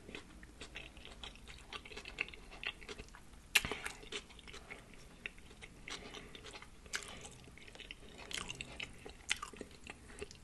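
Close-miked chewing of a birria-and-cheese pupusa: a run of wet mouth clicks and smacks, with one sharper click about three and a half seconds in.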